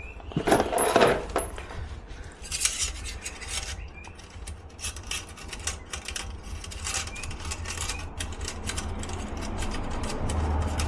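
Stainless steel exhaust pipe sections being worked together by hand at a slip joint: scattered metal clinks, with scraping and rubbing building toward the end as the pipe is pushed on.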